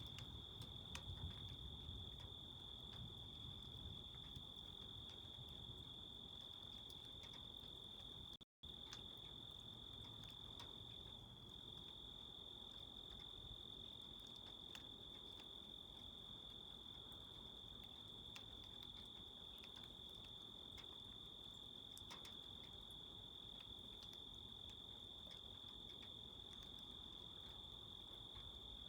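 Crickets trilling in a steady, continuous high-pitched chorus. The sound cuts out completely for a split second about a third of the way in.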